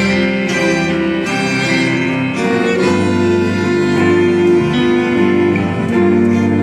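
Live band with a string section playing an instrumental passage: violins and cello bowing long held notes over electric guitars and keyboard.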